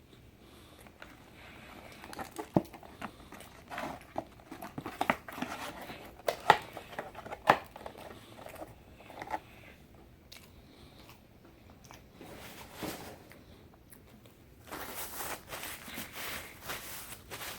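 Close-up eating and wrapper sounds: sharp crackles and chewing clicks scattered through the first half, then a steadier crinkling rustle of a paper food wrapper from about 15 seconds in.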